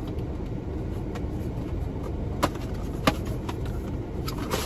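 Sharp clicks and taps of a small cardboard box being handled and opened, two louder ones about halfway through and a quick cluster near the end, over a steady low rumble inside a car.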